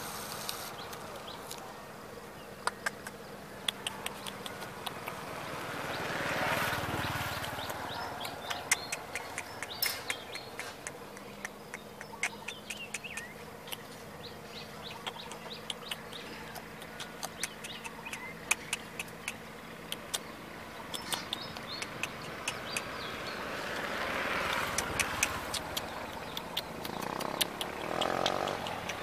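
Outdoor ambience: a vehicle passes twice, each time rising and fading, over a steady low hum, with scattered short clicks throughout.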